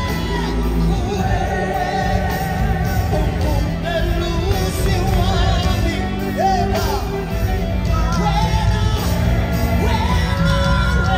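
Live gospel music: a lead singer with a microphone, backing singers and a band performing, heard loud from among the audience, with shouts from the crowd.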